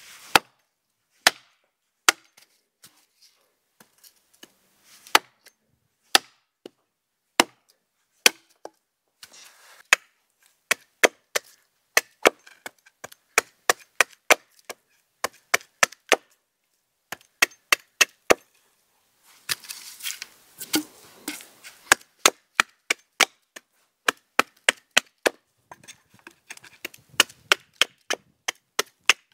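Axe chopping wood: a long run of sharp strikes, about one a second at first, then quicker at two to three a second, with a short stretch of rustling about two-thirds of the way through.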